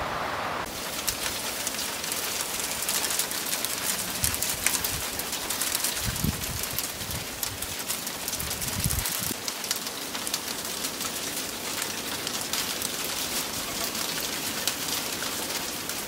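Winter storm outside: steady wind with a dense, fine patter of driven snow. A few low rumbles of wind buffeting the microphone come about four, six and nine seconds in.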